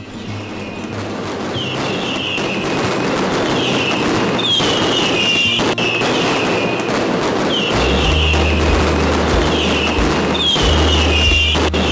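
A long string of firecrackers going off in a dense, continuous crackle of rapid bangs that grows louder. Music plays along with it, with a deep bass entering about two-thirds of the way through.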